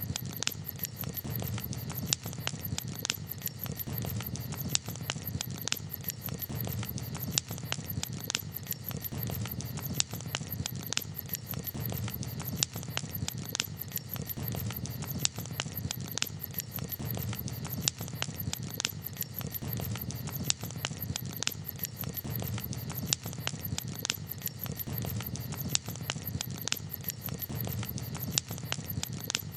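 Campfire crackling, with frequent sharp pops and snaps scattered irregularly over a low, steady rumble of the burning fire.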